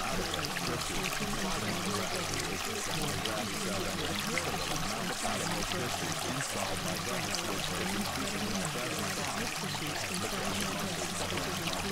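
Steady flowing, trickling water like a running stream, at an even level throughout, with a faint, blurred murmur of layered voices buried beneath it: subliminal affirmations masked under the water sound.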